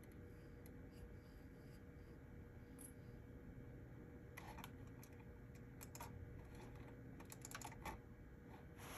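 Sparse computer keyboard typing: a few short, faint clusters of key clicks in the second half, over a low steady hum.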